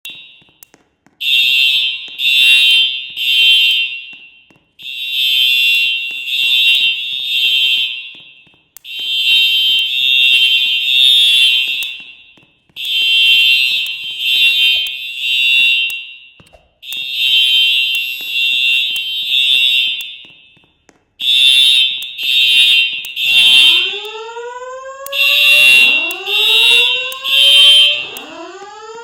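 Building fire alarm sounding the temporal-three evacuation signal: three high beeps in a row, the group repeating about every four seconds. About 23 seconds in, a rising whoop tone starts alongside it, sweeping up about once every two seconds.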